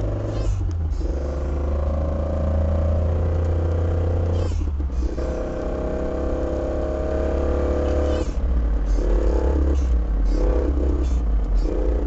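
Fiat Spider driving, heard from inside the cabin: the engine running, with a steady humming noise from the rear end that briefly drops out twice, around four and a half and eight seconds in. The noise gets louder when the clutch is let out.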